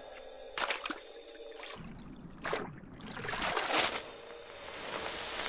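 Water splashing and dribbling as an archer fish spits jets of water: three sudden splashes, the loudest just under four seconds in, with a trickle of water between them.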